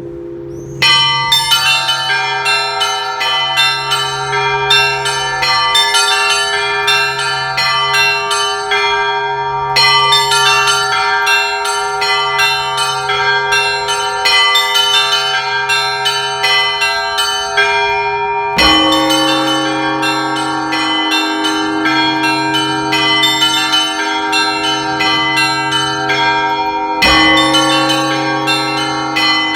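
Russian Orthodox church bells rung by a single bell ringer. A deep large bell rings out alone at first; from about a second in, small bells are struck in a quick, dense rhythm over its sustained hum. Heavier strokes of a mid-size bell come in about two-thirds of the way through and again near the end.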